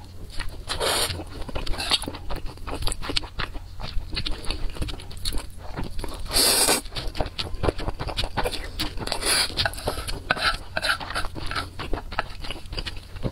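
Close-up eating sounds: wet chewing and lip smacks from a mouthful of spicy noodles and glazed seafood, with a loud slurp of noodles about six and a half seconds in.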